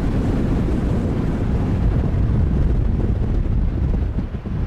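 Strong wind buffeting the microphone: a steady, dense low rumble.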